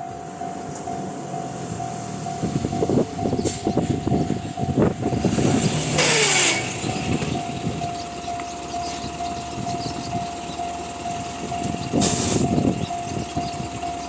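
Japanese railway level-crossing alarm ringing its steady, repeating Tōhoku-type electronic tone over the rumble and wheel clatter of a passing electric train. Loud rushing bursts come about six seconds in and again near twelve.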